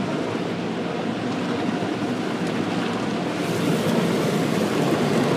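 Automatic car wash spraying water and running its brushes over a car, heard from inside the cabin: a steady rushing wash that grows louder about three and a half seconds in.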